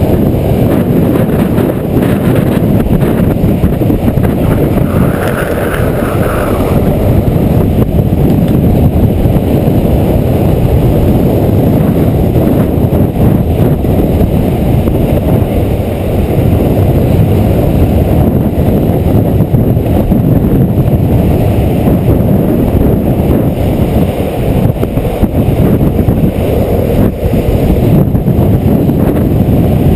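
Loud, steady wind buffeting the microphone of a camera moving fast downhill, mixed with the roar of longboard wheels rolling on asphalt.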